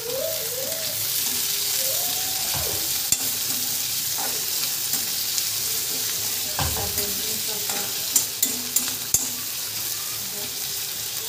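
Chopped capsicum and onion sizzling in mustard oil in a steel kadai, stirred with a perforated metal ladle that scrapes the pan. In the second half the ladle clicks against the pan several times.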